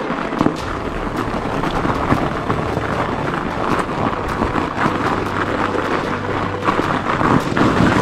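Fat bike ridden over snow: a steady rattling, crunching ride noise full of small clicks, with wind on the microphone.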